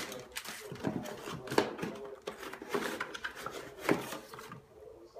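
Crumpled brown kraft packing paper rustling and crinkling as it is pulled out of a cardboard shipping box, with a few sharper crackles; it dies down near the end.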